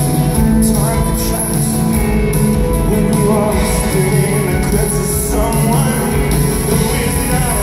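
Rock band playing live through a concert sound system: drums keeping a steady beat under electric guitars and keyboards.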